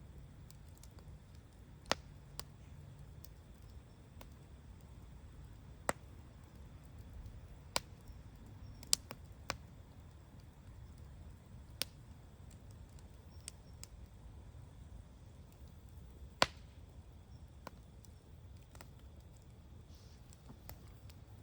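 Wood bonfire crackling: sharp, scattered pops and snaps every second or two at irregular intervals, the loudest about sixteen seconds in, over a faint low steady rumble.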